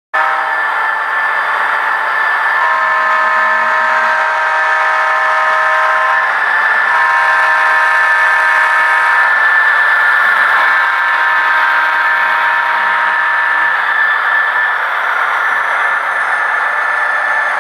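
Sound-equipped model diesel locomotive blowing a multi-chime air horn: three long blasts, the last following closely on the second, over a steady engine sound and the running noise of the passing train.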